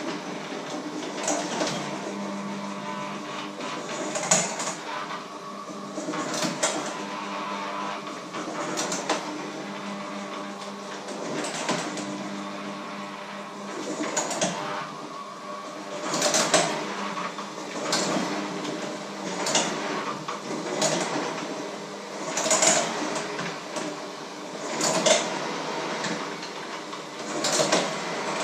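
Handheld electric kitchen mixer running steadily in a metal bowl of batter, its beaters scraping and knocking against the bowl's side every couple of seconds.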